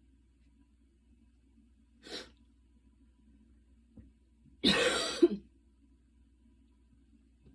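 A woman gives a short, light cough about two-thirds of the way through, coming after a fast run. About two seconds in there is a brief, faint breath.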